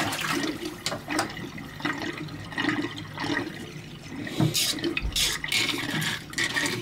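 Water draining down a freshly unclogged kitchen sink drain with an irregular gurgle, a sign the line is flowing again. There are a few splashes about four and a half to five and a half seconds in.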